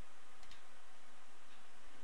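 A single computer mouse click about half a second in, over a steady hiss of microphone noise.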